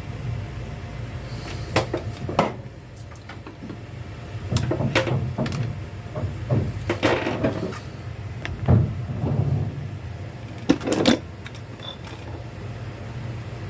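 Irregular clicks and knocks from handling and working on a toy robot during repair, over a steady low hum.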